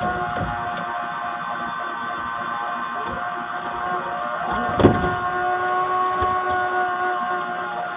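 Small electric motor of an automatic chicken coop door running steadily with a constant whine, with one sharp knock about five seconds in.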